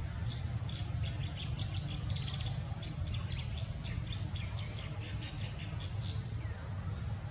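A bird chirping in a quick run of short high notes, about four or five a second, that stops near the end. Beneath it run a steady high insect hiss and a low rumble.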